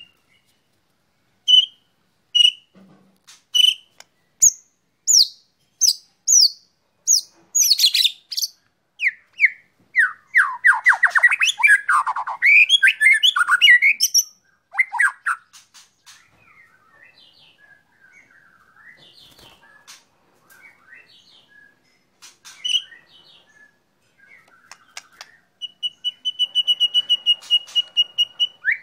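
White-rumped shama singing: separate short whistled notes about once a second, then a dense run of fast trills, then a rapid string of repeated notes near the end.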